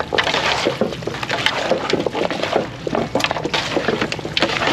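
Hands massaging curry seasoning into raw goat meat, a dense run of crackles and clicks.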